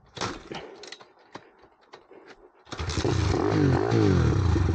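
Kick-start clatter on a monkey bike's Lifan 110cc four-stroke engine, then the engine catches about two and a half seconds in and runs with a brief blip of revs. Its idle has been turned down, which the rider thinks leaves it short of revs.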